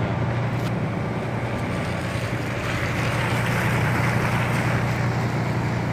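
Diesel fire-truck engines idling with a steady low hum, under a rushing hiss that swells from about two and a half seconds in and eases near the end.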